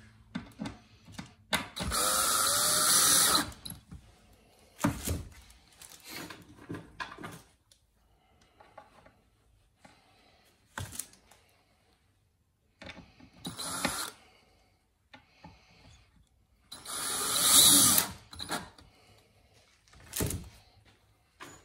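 Cordless drill motor running in short bursts while drilling holes and driving screws into a pine board. The two longest runs come about two seconds in and near the end, with sharp knocks of tools and boards being handled between them.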